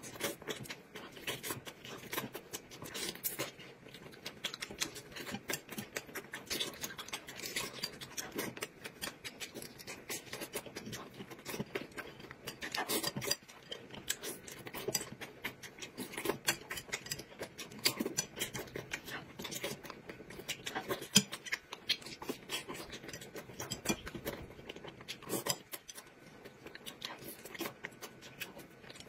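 Close-up mukbang eating sounds: a person chewing, with many small wet clicks and smacks of the mouth and utensils.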